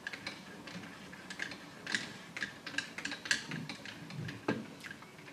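Cleaning rod with a solvent-wet patch being stroked back and forth through a rifle barrel, giving light, irregular clicks and rubbing.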